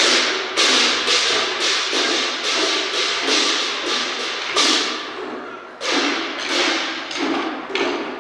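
Chinese waist drums beaten together by a troupe in a steady beat of about two strokes a second, with a pair of hand cymbals crashing along. A little past the middle one stroke is left to ring for about a second before the beat picks up again.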